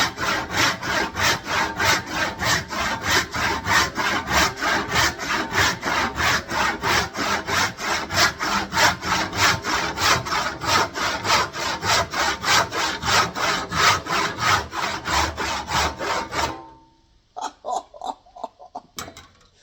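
Old Slack, Sellars & Co. Sheffield hand saw cutting through oak in quick, even strokes, about two or three a second; the saw is super sharp. The sawing stops about three seconds before the end, followed by a few faint knocks.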